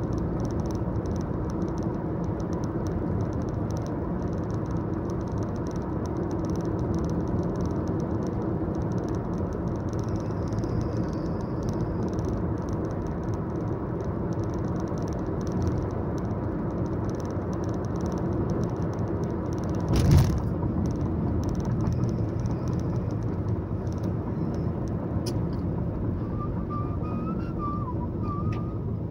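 A car driving along a road, heard from inside the cabin: steady road and engine noise, with a single loud thump about twenty seconds in.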